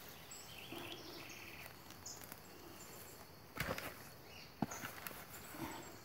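Quiet outdoor ambience with faint birds chirping now and then, and two soft knocks from hands handling an uprooted amaryllis clump and its soil, about three and a half and four and a half seconds in.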